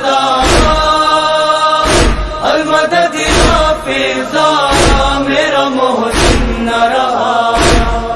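Noha interlude: a chorus of voices chanting held notes without words, over a deep thump about every second and a half that keeps the slow beat.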